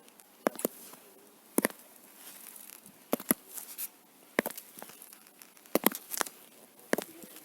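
Footsteps in stiletto-heeled boots whose worn heel tips leave the bare nail ends striking hard ground: sharp, loud clicks, slow steps a little over a second apart, several with a quick double click.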